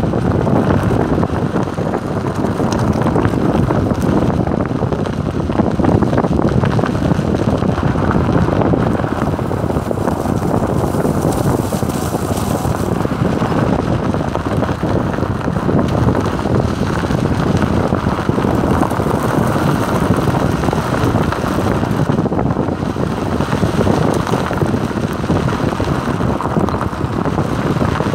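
Wind buffeting the microphone at the window of a moving Maruti Suzuki Alto, mixed with the car's tyre and engine noise on a dirt track: a steady rushing rumble that does not change.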